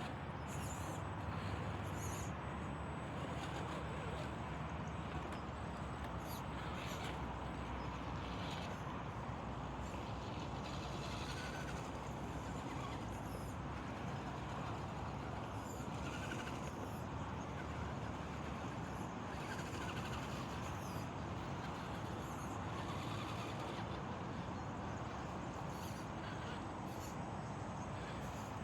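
Radio-controlled rock crawler driving: a steady noise of motor and drivetrain, with scattered short clicks and crunches, likely the tyres over rough ground.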